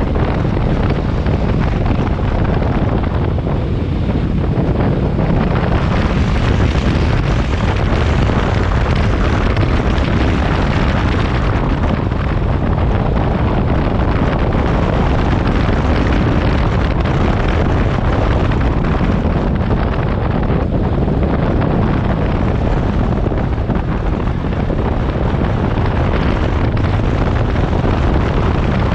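Wind rushing over the microphone of a motorcycle ridden at moderate road speed, with the engine and tyres running underneath. It is a steady, loud, mostly low rumble with no clear changes.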